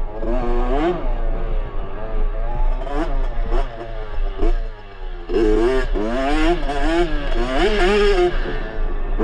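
2022 Yamaha YZ65's small single-cylinder two-stroke engine revving up and down under a riding throttle, its pitch rising and falling with each gear and bump. Its pitch drops off and the engine goes quieter a little past the middle, then it comes back on hard.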